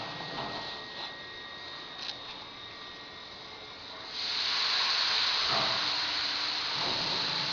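Open platform lift running as the platform rises: a steady hiss over a low hum, with a couple of faint clicks in the first two seconds. The hiss gets louder about four seconds in.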